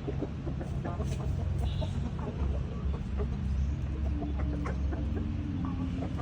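Fighting cocks clucking in short, quick, repeated calls over a steady low rumble.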